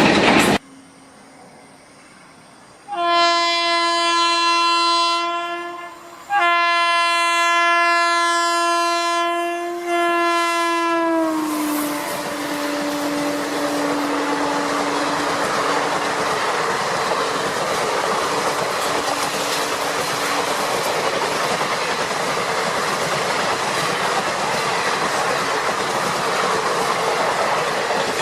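Indian Railways locomotive horn sounding two long blasts, the second dropping slightly in pitch as the train passes, followed by the steady rumble and clatter of the train running on the rails.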